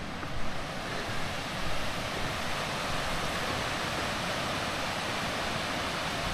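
Steady rush of fast-flowing water in a mountain stream, with wind buffeting the microphone.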